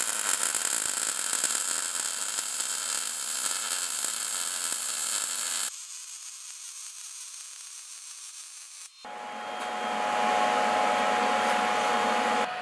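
MIG welding arc on a Jasic MIG 160 set to 130 amps and 19.2 volts, crackling and hissing steadily while a fillet weld is run on 2 mm steel. About six seconds in it drops suddenly to a faint hiss. A few seconds later a steady whirring noise with a faint hum starts and runs to the end.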